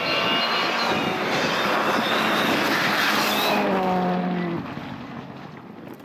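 Rally car engine at full throttle, accelerating hard with its pitch climbing, then the pitch falls and the sound fades about four seconds in as the car pulls away.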